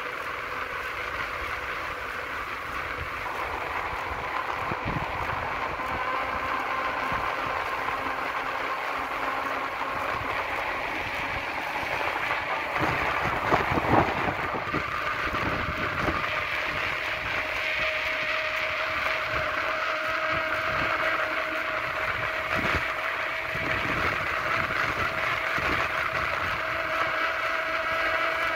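Air rushing over the microphone and wheels rolling fast on asphalt on a downhill descent, with a faint steady whine and gusts that swell a little past the middle.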